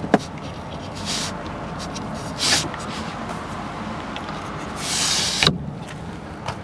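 Sliding rear side window of a 1989 Mitsubishi Pajero being worked by hand: a sharp latch click at the start, short swishes of the glass in its track, then a longer slide ending in a click about five and a half seconds in, over a steady low hum.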